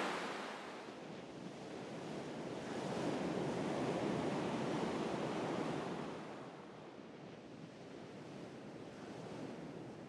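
Ocean surf washing onto a sandy beach, a steady hiss of breaking water that swells about three seconds in and eases off again around six seconds.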